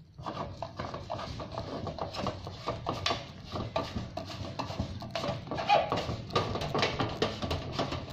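Telescopic boom gate arm being pulled out at its joint, the inner section sliding inside the outer one with a run of rapid, irregular scraping and clacking.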